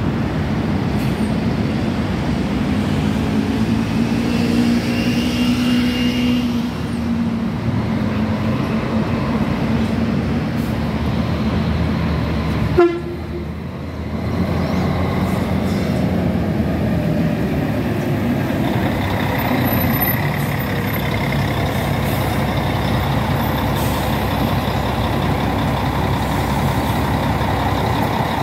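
Diesel engine of a three-axle double-decker intercity coach running as it pulls out and drives past, a steady drone whose pitch rises and falls a few seconds in. A sharp click and a short dip in the sound come about halfway through.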